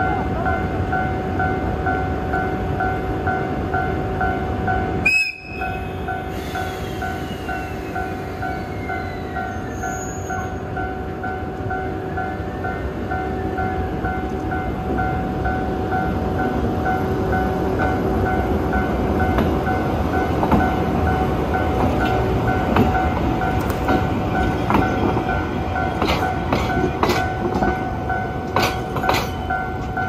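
Electronic level-crossing warning bell ringing steadily, over the low rumble of a slow locomotive pair crossing: a JR EF81 electric locomotive followed by a DE10 diesel locomotive with its engine running. Near the end, a run of sharp clacks from wheels passing over rail joints.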